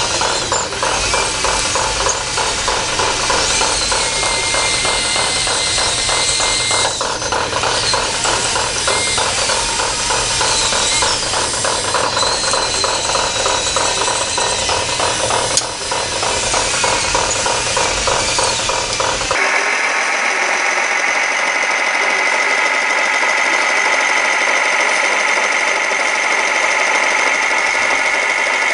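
Electric motors and gear trains of radio-controlled scale construction models running under load, a fast, even gear ratcheting with motor whine. About 19 seconds in it changes abruptly to a steadier, higher whine.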